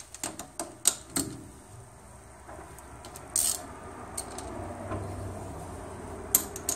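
Sharp metallic clicks and knocks from a chuck key working the jaw screws of a four-jaw lathe chuck while the work is offset and dialed in against a dial indicator. There are several clicks in the first second and a half and another cluster near the end, with a low steady hum coming up about two and a half seconds in.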